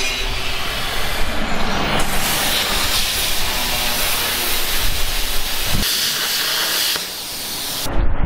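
Plasma cutter cutting steel plate: a steady, loud hiss of the arc and its air jet, which stops near the end.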